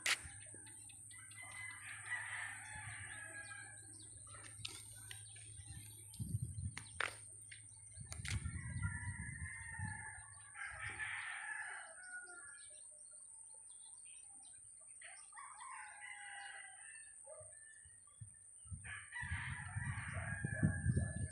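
Roosters crowing, four crows of about two seconds each spaced several seconds apart. Low rumbling bursts of wind on the microphone come and go, strongest near the end.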